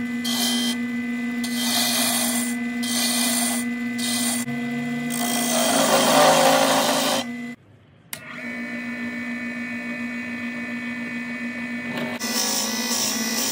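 Wood lathe running with a steady motor hum while a hand turning tool cuts the spinning wooden blank in on-and-off strokes, with the heaviest cut about six seconds in. After a brief break, a drill bit in the tailstock bores into the end of the turning blank, with a fast repeating rasp near the end.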